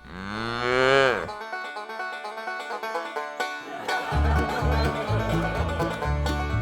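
Upbeat plucked-string background music. It opens with a tone that slides up and falls away in the first second, then runs into quick plucked notes, and a steady bass beat comes in about four seconds in.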